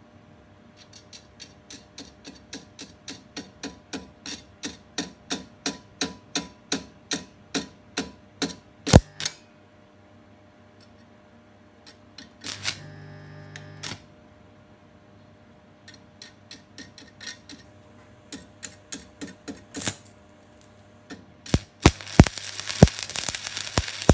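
Evenly spaced clicks, about three a second, growing louder over the first eight seconds, then a loud knock, a short hum and scattered clicks. About 22 seconds in, a stick welder's arc strikes with a few sharp cracks and settles into a steady crackle.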